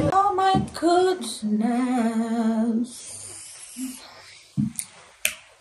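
A woman's voice singing a short unaccompanied phrase that ends on a long held note with vibrato, followed by a few short, soft clicks.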